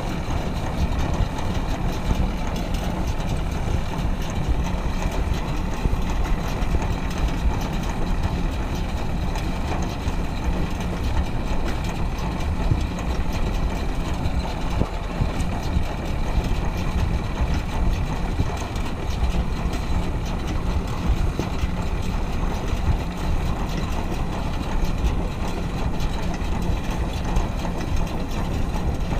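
Belarus MTZ tractor's diesel engine running steadily under load as it pulls a round baler picking up hay. A steady low rumble with no break.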